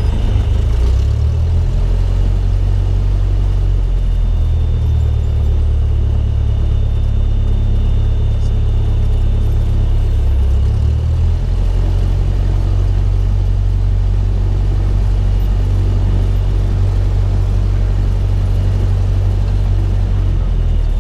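Cessna 172's four-cylinder piston engine and propeller droning steadily in the cabin, a deep, even rumble whose pitch shifts slightly about a second in and again about halfway through.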